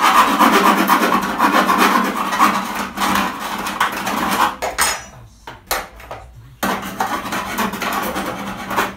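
Hand file rasping on the van's sheet-steel panel in quick back-and-forth strokes. It breaks off about four and a half seconds in and starts again at about six and a half seconds.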